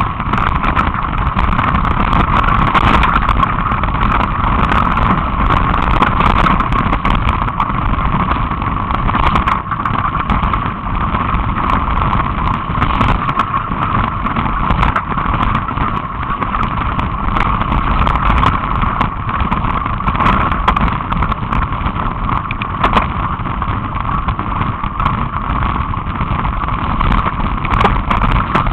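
Mountain bike being ridden along a trail: a steady rushing noise, with many small clicks and rattles scattered throughout.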